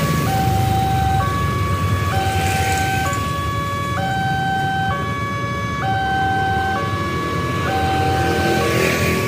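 Electronic warning alarm of a railway level crossing, sounding a repeating pattern of alternating tones, each held about a second, to signal an approaching train. Motorbike traffic rumbles underneath.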